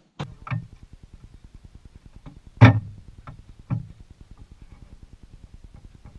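Deck winch ratcheting, its pawls clicking rapidly and evenly, about ten a second, as it is turned to work the keel line. Several sharper knocks come over the clicking, the loudest about two and a half seconds in.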